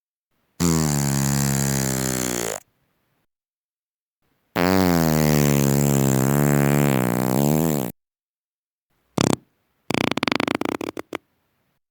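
Four human farts, one after another with silence between: a pitched two-second fart, a longer one of about three and a half seconds with a wavering pitch, a short blip, and a sputtering fart of rapid pops near the end.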